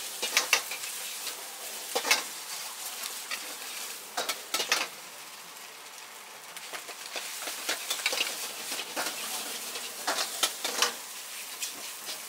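Food stir-frying in a wok with a steady sizzle. A metal wok ladle scrapes and clanks against the wok repeatedly as the rice is tossed and stirred.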